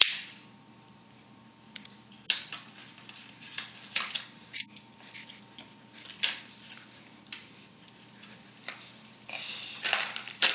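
Hands handling a plastic action figure and its clear plastic blister packaging: irregular crinkles and clicks, with a longer, louder rustle near the end.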